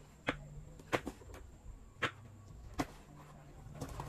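Kitchen knife slicing red onion on a wooden cutting board: about half a dozen sharp knocks of the blade on the board, unevenly spaced.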